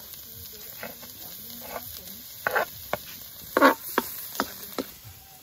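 Minced garlic sizzling in hot oil in a steel wok, with a wooden spatula scraping and knocking against the pan as it stirs. The knocks come about ten times, the loudest about three and a half seconds in.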